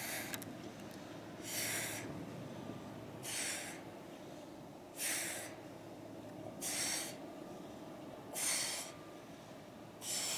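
A woman's sharp, forceful exhales, one with each abdominal crunch as she curls up: seven short breathy puffs at an even pace of about one every 1.7 seconds. They carry the effort of a hard set of crunches.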